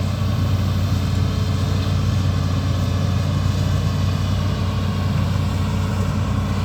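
Amphibious excavator's diesel engine running at a steady, even speed, a constant low hum.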